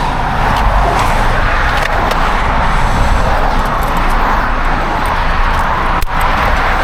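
Steady noise of road traffic going by, with a low rumble and a faint click about six seconds in.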